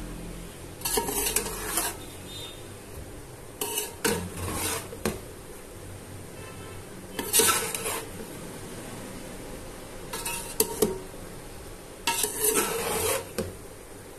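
A metal spoon scraping and clanking against a large metal cooking pot as boiled rice is turned over and mixed with vegetables. It comes in about five short bouts, a couple of seconds apart.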